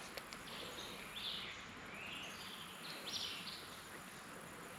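Faint creek-side ambience: a steady soft hiss of moving water with a few faint bird chirps scattered through it.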